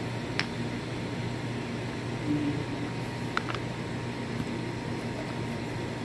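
Steady low hum of a machine running in the background, with a few light clicks of metal compressor parts being handled: one about half a second in and two close together about three and a half seconds in.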